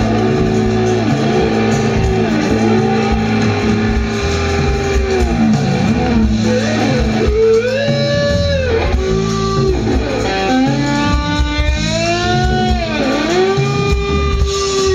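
Live rock band playing an instrumental passage: a lead melody slides and bends up and down in pitch over steady bass, drums and chords.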